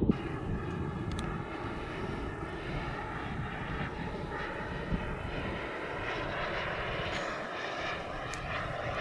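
Radio-controlled F-4 Phantom model jet's engine running steadily as the jet flies at a distance: a rushing jet noise with faint steady tones, over a low rumble.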